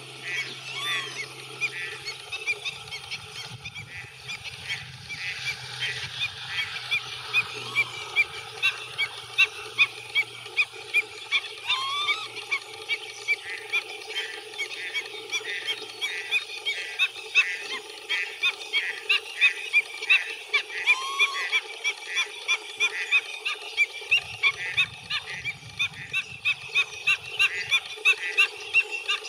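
Wetland animals calling in a dense chorus of short repeated notes, several a second, with a couple of longer rising calls.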